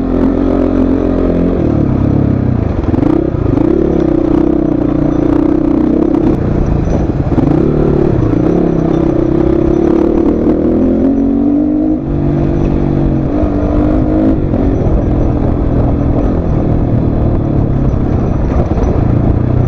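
Motorcycle engine running on an off-road descent, the revs rising and falling again and again, with a brief drop about twelve seconds in before it picks up at a new pitch.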